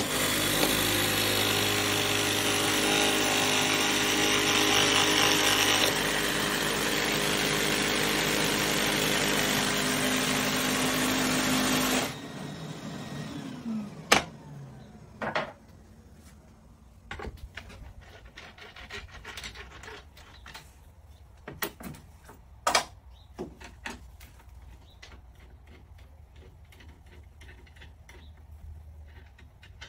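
A power tool motor runs steadily, with a slight change in its note about halfway, then is switched off and winds down with a falling hum. After that come scattered sharp clicks and knocks of hand work on wood.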